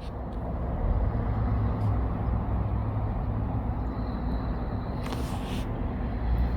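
Road traffic: a heavy vehicle's engine running with a low, steady rumble that swells about a second in and holds.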